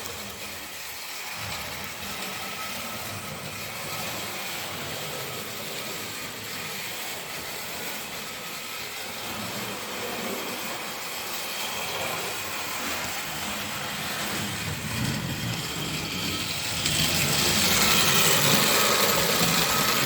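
Model train running round the track, its small motor and wheels making a steady rumble that grows louder about 17 seconds in as it comes near.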